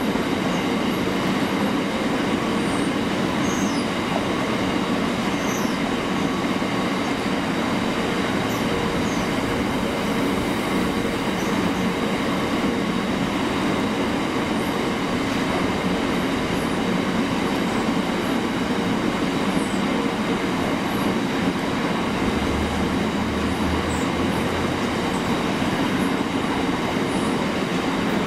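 A Freightliner freight train's wagons rolling steadily past on the rails, a constant rumble with faint, brief high squeals from the wheels.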